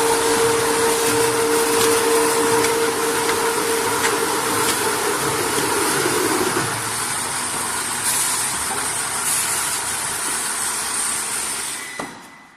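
High-speed 4 ft rotary veneer peeling lathe running, turning a log against the peeling knife with a steady hissing mechanical noise. A steady hum fades out about halfway, and the sound falls away near the end.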